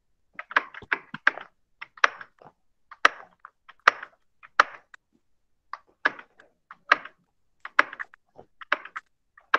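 Computer keyboard keys typed one at a time: a slow, irregular run of single clicks with short pauses between them.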